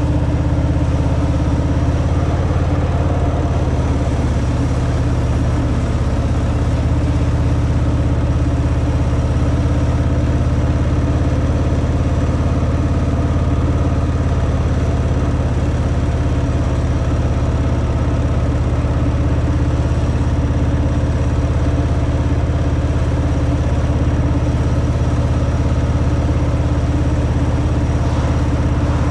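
Harley-Davidson Fat Boy's V-twin engine running steadily through its stock exhaust, holding an even pitch with no revving.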